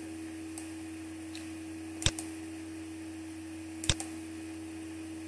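Computer mouse clicking as attributes are selected in a list: two sharp clicks about two seconds apart, each a pair of close clicks, with a few fainter clicks between, over a steady low hum.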